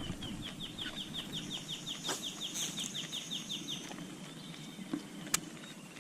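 A bird calling in a rapid run of short, high, downslurred notes, about five a second, for nearly four seconds, then stopping; a single sharp click about five seconds in.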